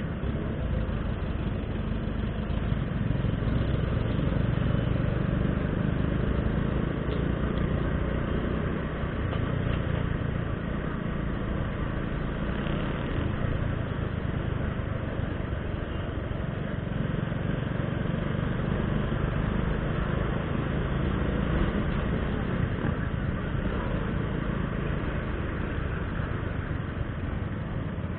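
Motorcycle engine running at low speed in slow traffic, heard from a camera mounted on the handlebars, with steady road and wind noise over it.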